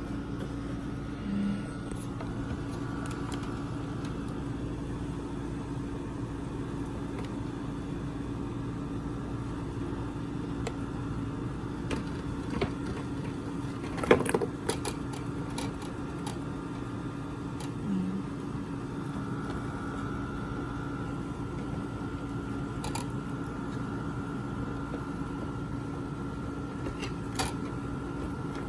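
Tour boat's motor running with a steady hum, with a few brief knocks, the loudest about halfway through.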